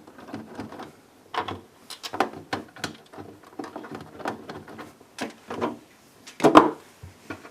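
Clicks and knocks of the refrigerator's plastic diverter panel and screws being handled as the screws are put in, with one louder knock about six and a half seconds in.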